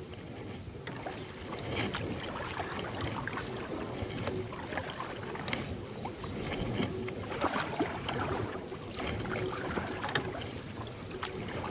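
Water splashing and dripping around a paddled river boat, with swells of splashing every few seconds as the paddle strokes.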